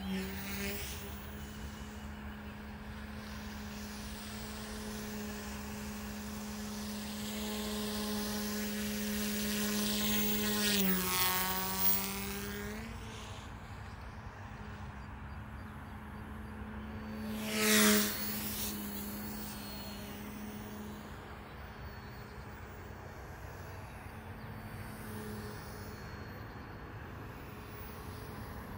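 OMPHobby M1 small electric RC helicopter in flight, its rotors and motors giving a steady hum. It makes two close passes, about a third and two-thirds of the way in, with the pitch shifting as it goes by. The second pass is the loudest.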